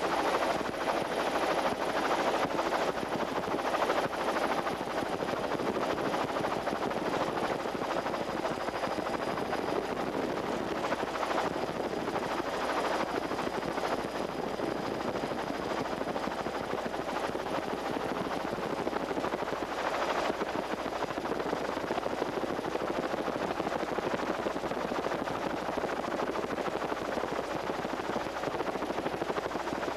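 Steady helicopter engine and rotor noise, recorded from on board the helicopter.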